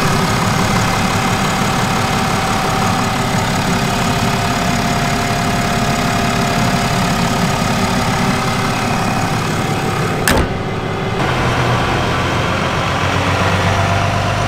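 A 2019 Ram 3500's high-output 6.7-litre Cummins turbo-diesel straight-six idling steadily under an open hood. It is a quiet idle for a diesel. A sharp click comes about ten seconds in, after which the idle sounds deeper.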